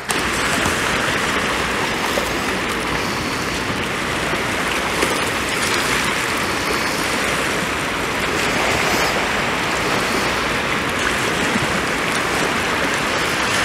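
Steady, even rushing noise of water, starting abruptly and holding at one level throughout.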